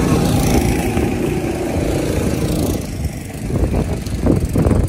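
Go-kart's small engine running as the kart drives past close by: a steady drone that fades away about three seconds in.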